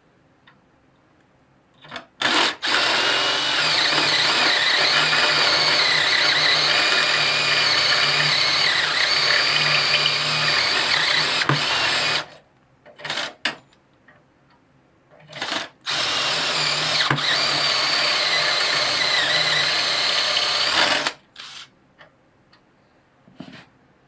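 Ryobi cordless drill boring through the steel frame plate of a garden tractor: a couple of short trigger blips, then a steady run of about ten seconds with a high wavering whine from the bit cutting the metal, a few more short blips, and a second run of about five seconds.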